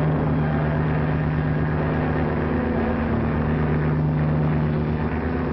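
Steady drone of the piston engines of a formation of propeller aircraft.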